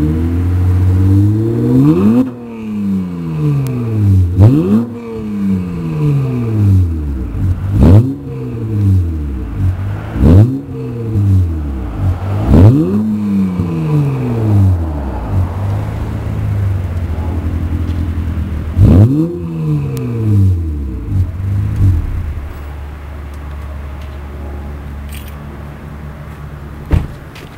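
Car engine breathing through a dual exhaust with the rear mufflers deleted and 3.5-inch resonated tips, revved in about six quick blips, each rising sharply and then falling back. After about 22 seconds it settles into a steady idle, with one short sharp click near the end.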